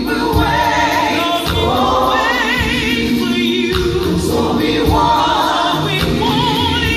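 Gospel choir singing with a live band, a lead voice with a wide vibrato standing out above the choir.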